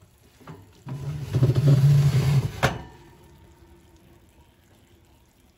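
Oven rack sliding out on its metal rails, a scraping rumble for about two seconds that stops with a sharp metal clack.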